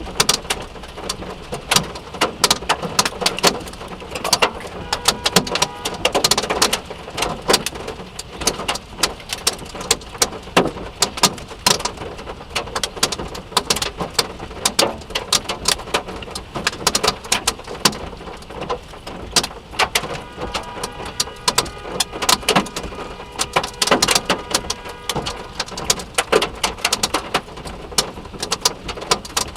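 Hailstones striking a Subaru's body and glass: a dense, irregular clatter of sharp knocks, many a second, with some louder cracks, over a steady rush of rain.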